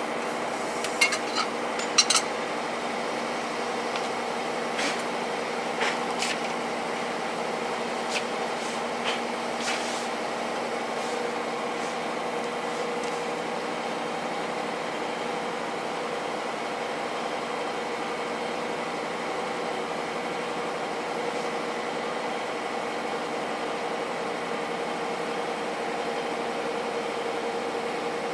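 Metal hand tools clicking and clinking against truck parts under the vehicle, sharpest about one to two seconds in, with a few lighter clinks up to about ten seconds in. A steady machine hum runs underneath throughout.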